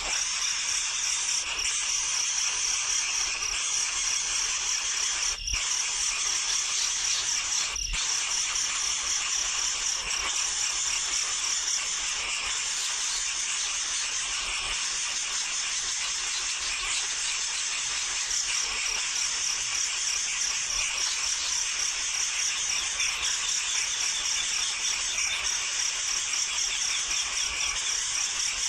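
Baby birds in the nest calling noisily in a dense, continuous high-pitched chorus of rapid chirps, breaking off briefly twice.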